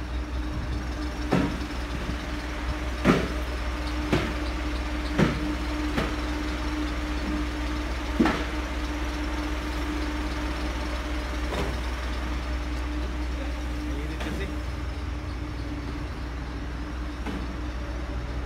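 Cartons being loaded into a delivery truck's cargo box, giving scattered knocks and thumps, about nine in all, the loudest about three and five seconds in, over a steady low mechanical hum.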